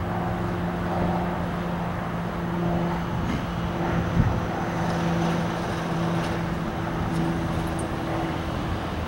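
Freight train rolling away along the track, a steady rumble under a steady low hum, with a single short knock about four seconds in.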